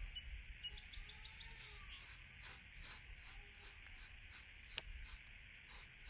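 Faint, repeated scraping and pressing strokes of a silicone spatula on crushed biscuit crumbs in a stainless steel pan, over a steady hiss, with one sharper click nearly five seconds in.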